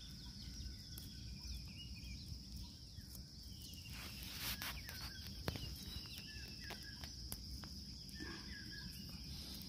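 Insects buzzing steadily at a high pitch, with faint scattered clicks and rustling from hands working a fish out of a nylon gill net.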